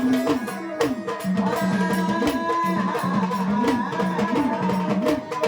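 Instrumental music of a Marathi devotional song: a melody with gliding notes over a steady drum beat.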